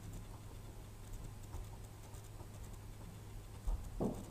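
Faint handling noise from working a soldering iron on a small circuit board: scattered light clicks and taps over a steady low hum, with a soft thump near the end.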